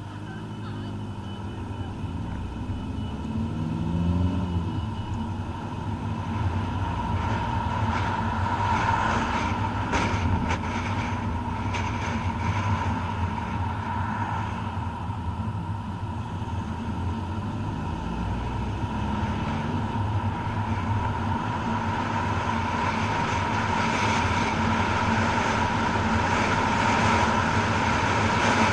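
Car engine and tyre noise inside the cabin of a moving car. The engine pitch rises in the first few seconds as the car pulls away, and the noise builds gradually as it gathers speed.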